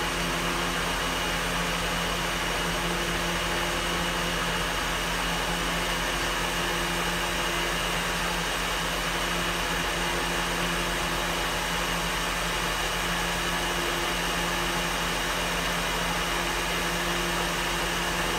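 Bridgeport J-series vertical milling machine running, its 3/4 hp single-phase motor and spindle giving a steady hum with a few held tones while the power quill feed slowly drives the quill down.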